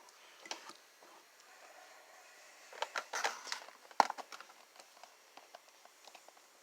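Action figure packaging being handled: faint scattered crinkles and clicks of plastic and cardboard, with a sharp click about four seconds in.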